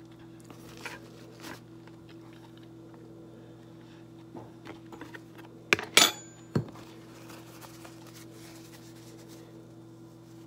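A fork knocking against a plate, a few sharp clinks about six seconds in, with fainter clicks earlier, over a faint steady hum.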